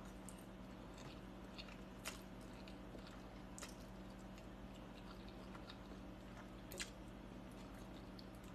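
Faint sounds of a person eating a forkful of spaghetti: quiet chewing with a few small clicks, over a low steady hum.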